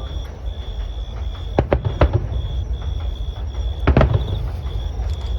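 Fireworks shells bursting in sharp bangs over a low rumble: a quick pair and a single bang about a second and a half to two seconds in, and a double bang about four seconds in.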